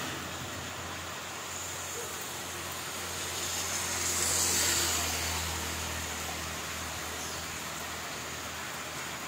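Steady rain hiss with the low, steady hum of a vehicle engine running underneath; the hiss swells briefly about four to five seconds in.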